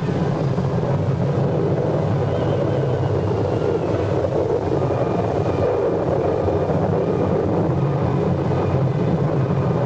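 The roar of a tornado: a loud, steady rushing wind with a deep rumble underneath, unbroken throughout.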